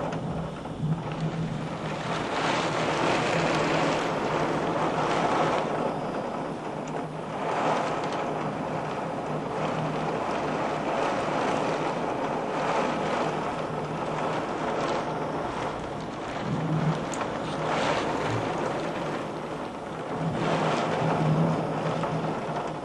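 Thunderstorm wind and heavy rain: a continuous rushing that swells and eases in gusts, with a low steady hum underneath.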